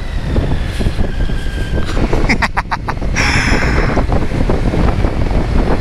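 Wind buffeting the helmet microphone over the steady running and road noise of a Kawasaki Z900 inline-four motorcycle underway, with a quick run of clicks about two and a half seconds in.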